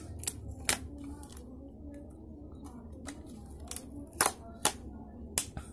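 A handful of sharp clicks and crackles as the thin metallic foil shield along the edge of an LED TV panel is bent and handled by fingers. The loudest pair of snaps comes a little after four seconds in.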